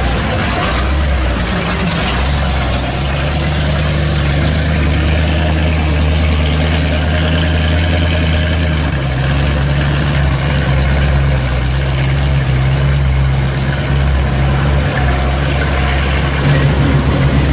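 Supercharged 1955 Chevrolet Nomad's V8 running steadily at low speed as the car pulls away, with a deep exhaust note that shifts about halfway through and gets slightly louder near the end.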